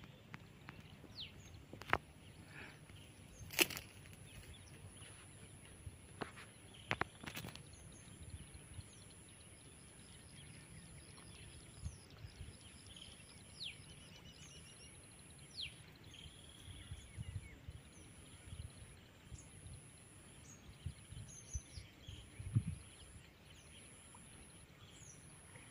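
Quiet outdoor ambience. Faint bird chirps and a thin, high steady tone that breaks into regular short pulses about halfway through, with a few sharp clicks and soft thumps scattered across it.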